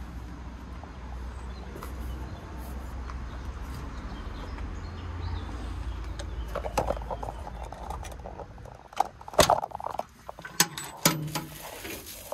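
Handling noise: a low rumble in the first half, then a run of clicks and a few sharp knocks about nine to eleven seconds in, as hands work the combine's sheet-metal shields and the phone is moved.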